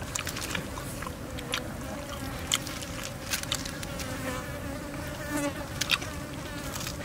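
An insect buzzing steadily, with sharp clicks and scrapes as a knife cuts crisp grilled fish skin against a wire grill rack.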